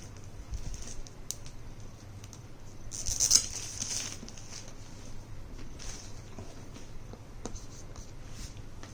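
Packaging of a tablet box being handled and opened: scattered light rustles and small clicks, with a louder rustle about three seconds in.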